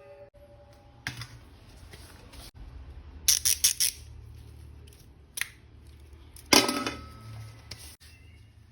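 Plastic toy pieces and packaging handled on a hard surface: a quick run of clicks about three seconds in, a single click, then a louder knock with a brief ringing tone.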